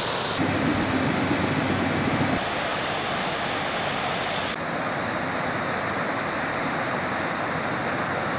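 Fast-flowing muddy floodwater rushing across a shallow stream crossing: a steady, loud noise of water whose tone shifts abruptly a few times.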